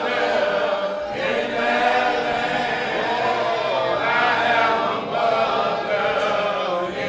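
A choir singing, many voices together in phrases a second or two long.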